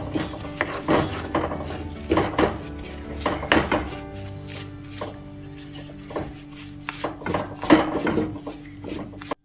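Wooden spatula scraping and knocking against a metal kadhai as a thick semolina-and-milk mixture is stirred and turned, in irregular strokes about one or two a second. Steady background music runs underneath.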